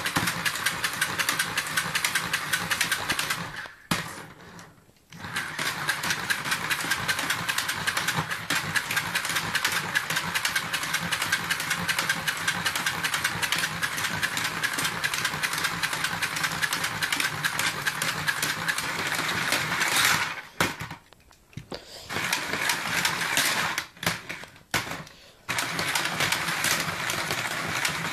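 Carrera Go slot car's small electric motor whirring as it laps the plastic track and loop, with a fast rattle from the car running over the track. The sound stops briefly about four seconds in and twice more past the twenty-second mark, then picks up again.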